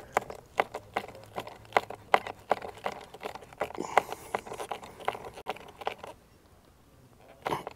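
Hand screwdriver tightening a stainless steel screw into a tail light fixture on an aluminum camper wall: a run of sharp clicks and scrapes, about four a second, stopping about six seconds in, then two more clicks near the end.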